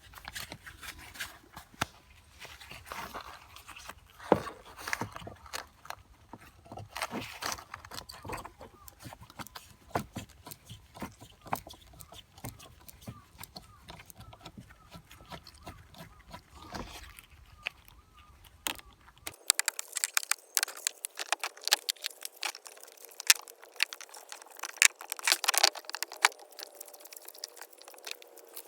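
Irregular clicks, taps and rattles of hand work on small parts and tools, dense and uneven, with a faint steady hum joining about two-thirds of the way in.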